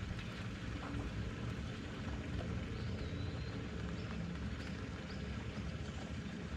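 Steady low drone of a motorboat engine, with a few faint short high chirps over it.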